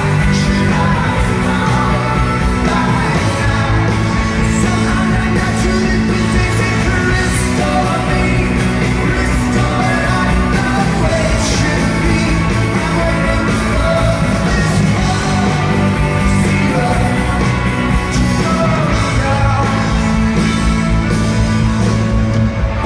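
Rock band playing live with a lead singer over bass, guitars and drums, loud and continuous.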